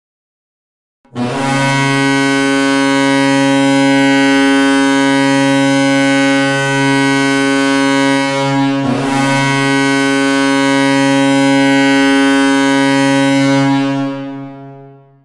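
Hockey goal horn, a ship-style air horn, sounding one long blast of about thirteen seconds on a steady chord, with a brief dip about two-thirds of the way through before it fades out.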